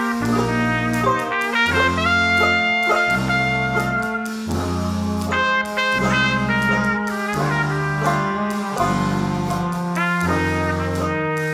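Background jazz played by a brass band: trumpet and trombone lines over a low bass that steps from note to note about once a second.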